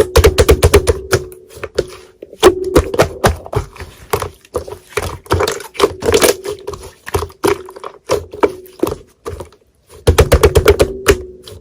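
Slime being pressed and squished by hand, giving quick runs of sharp clicks and pops, with brief pauses between handfuls.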